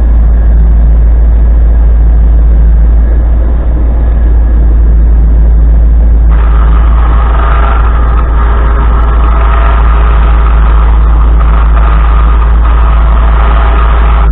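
1989 Chevy Suburban's engine idling close by, a loud steady low drone. About six seconds in, a steady higher whine made of several tones joins it and holds.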